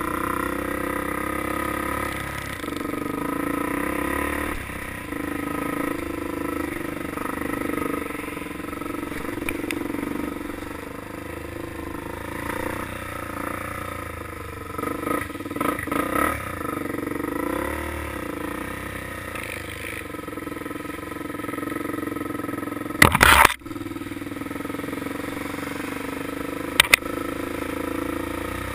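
Off-road vehicle engine running steadily and changing pitch as the throttle is worked on a dirt trail. A brief loud noise cuts in near the end.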